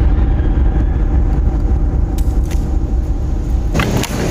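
Steady low rumble of city street traffic, with vehicle engines running.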